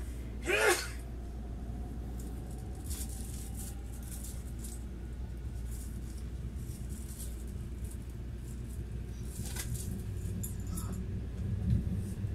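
Kintetsu 80000 series Hinotori limited express train running, heard from inside as a steady low rumble with faint clicks. A short, sharp high squeak about half a second in is the loudest sound, and a low thump comes near the end.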